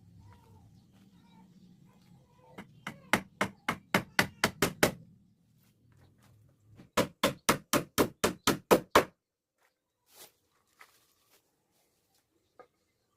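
Hammering on wood: two quick runs of about ten blows each, roughly four a second, with a pause of about two seconds between them.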